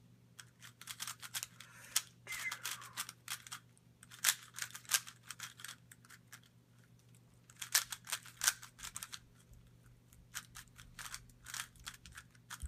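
GAN 356 3x3 speedcube being turned quickly, its plastic layers clicking and clacking in several bursts of rapid turns with short pauses between. The cube has just been lubricated and is being broken in.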